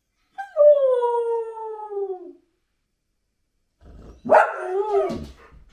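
Samoyed howling: one long howl sliding down in pitch, then after a pause a shorter, louder howl about four seconds in.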